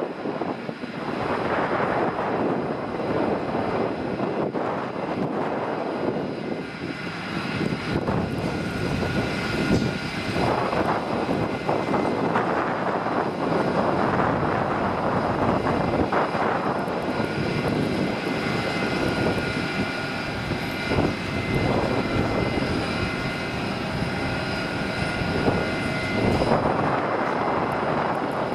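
Jet airliner engines at takeoff thrust: a steady, loud roar with high whining fan tones over it, the whine growing clearer about halfway through.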